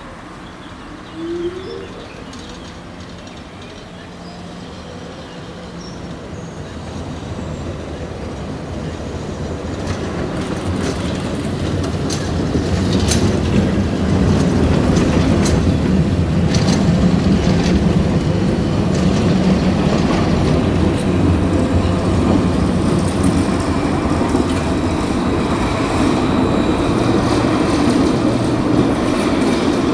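TFS tram running past at close range. Its rumble builds over about ten seconds, then stays loud and steady, with a spell of clicking and clattering from the wheels on the rails as it passes.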